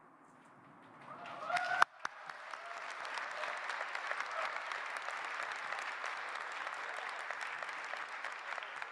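An audience applauding steadily from about two seconds in, just after a few voices rise and a sharp click.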